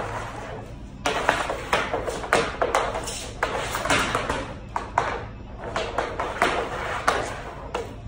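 Hockey stick working a puck on a garage floor: a quick, uneven run of clacks and knocks that starts about a second in, with a shot at the net about halfway.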